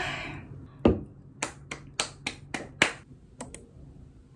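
A run of about ten short, sharp clicks or taps at uneven spacing, most of them bunched in the middle.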